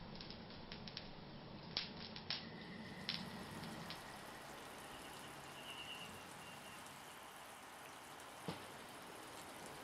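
Faint campfire cooking sounds: a steady hiss with a few sharp crackling pops, most of them in the first three seconds and one more near the end.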